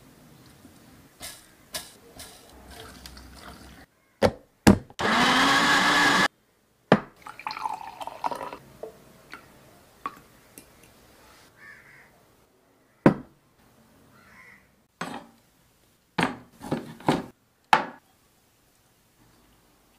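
Electric blender blending watermelon chunks in a short run of about a second and a half, its motor rising in pitch as it spins up; two sharp knocks come just before it. Afterwards there is liquid pouring, then a scatter of sharp taps.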